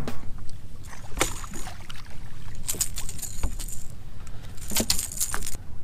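A striped bass thrashing and splashing as it is lifted by hand over the side of a boat: a few short splashy, rattling bursts over a low rumble.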